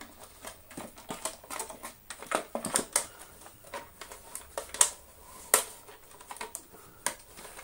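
Irregular clicks and knocks of plastic vacuum cleaner parts being handled and pushed into place, as the cord reel and casing of an Electrolux Slimline 185 are refitted. Two sharper knocks come about five seconds in.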